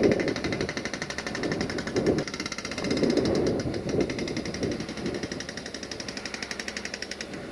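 Wind buffeting the microphone in uneven gusts, loudest at the start. Through it runs a rapid, evenly repeated high-pitched ringing that stops shortly before the end.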